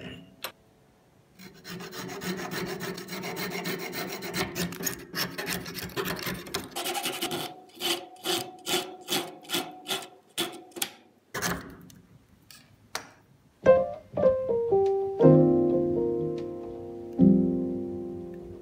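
Protruding bamboo skewer ends being rubbed flush with a hand-held abrasive block on a popsicle-stick part held in a vise. At first it is a continuous scraping, then separate back-and-forth strokes about two a second. Piano music comes in about three-quarters of the way in.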